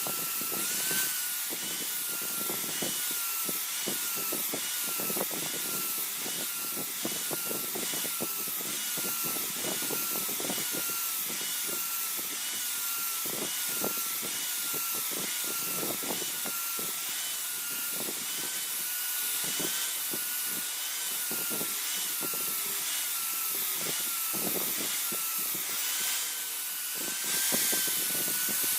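Electric power grinder running with a steady whine that dips in pitch about once a second as a spring-steel dao blade is pressed against it in repeated passes, with a grinding hiss and scraping.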